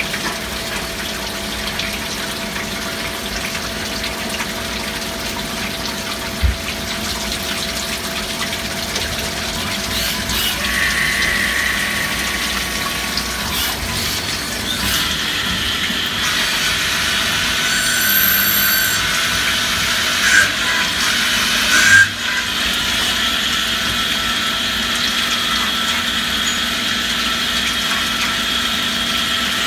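Star SR-32J sliding-head CNC lathe cutting metal under flood coolant: a steady hiss of coolant oil pouring over the tooling, with a constant machine hum. From about ten seconds in, high whining cutting tones come and go and change pitch, and there are a few short knocks.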